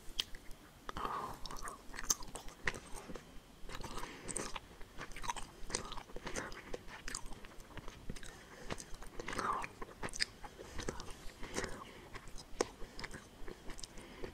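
Close-miked chewing of gummy candy: many short sticky clicks and mouth smacks.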